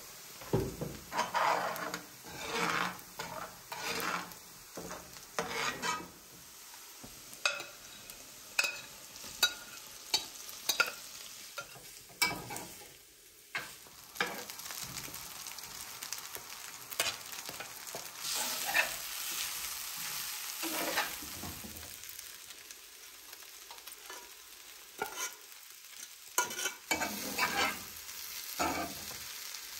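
Food sizzling as it fries in a frying pan, while a utensil stirs and scrapes across the pan in many short strokes.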